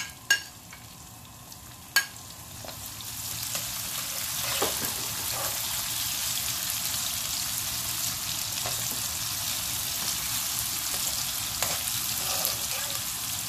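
Sliced onions frying with whole spices in hot oil in an aluminium kadhai on high heat: a steady sizzle that swells about three seconds in and then holds. A metal slotted spoon clinks against the pan a couple of times near the start.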